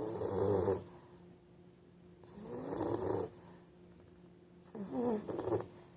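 English Bulldog snoring: three snores about two and a half seconds apart, each lasting under a second.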